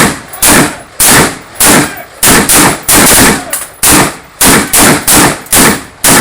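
M16 rifles (5.56 mm) firing single shots in steady succession, about two shots a second, each shot very loud with a short ringing tail.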